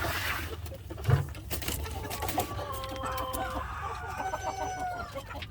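A flock of meat roosters clucking, with several drawn-out calls overlapping in the middle of the stretch.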